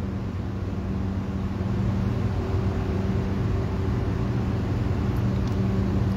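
Steady low mechanical hum, like machinery or an engine running, made of several low tones held without a break.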